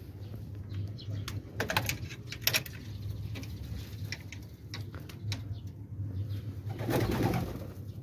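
Domestic pigeons cooing, with several sharp clicks in the first few seconds and a brief flurry of wing flapping about seven seconds in.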